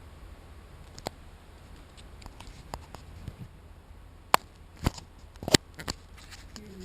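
A scattered series of sharp clicks and knocks over a low steady hum, the loudest coming about four, five and five and a half seconds in.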